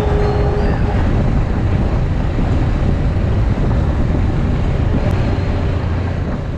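Off-road vehicle riding down a dirt trail, its running and wind buffeting the camera microphone making one steady, heavy rumble that begins to fade near the end.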